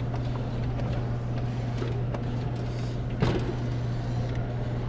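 Claw machine running: a steady low electric hum with scattered light clicks, and one sharper clack about three seconds in.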